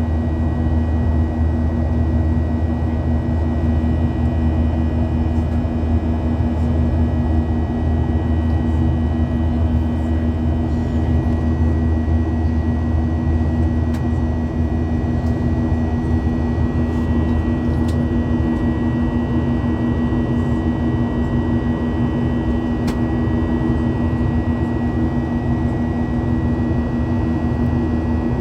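Steady cabin drone of a Boeing 737-800 in flight: jet engine and airflow noise heard from inside the cabin, with a steady low hum and a faint high whine running through it.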